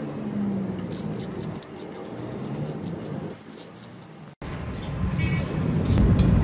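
Light metallic clicking and tapping as slag is knocked off a fresh steel weld bead with a metal rod. A little over four seconds in the sound cuts abruptly, and a louder low steady noise takes over.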